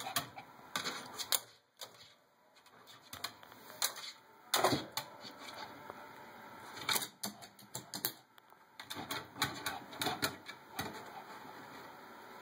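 Rapid, irregular clicking and scratching of small pet claws on hard plastic and wood, with a louder knock about four and a half seconds in and two short lulls.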